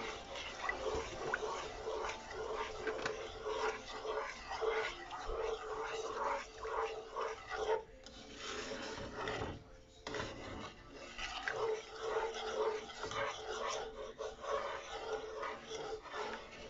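Wooden spoon stirring milk gravy in a nonstick frying pan, a steady run of short scrapes against the pan bottom, with a brief lull around the middle.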